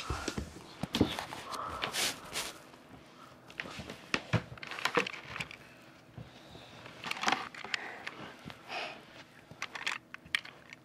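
Handling noise: irregular clicks, taps and rustles as a toy car is set down and moved about on a carpet.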